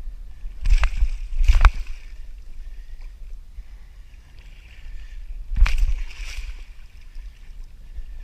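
Water splashing and sloshing around a kayak, with sudden loud splashes about a second in and again around six seconds in, over a steady low rumble.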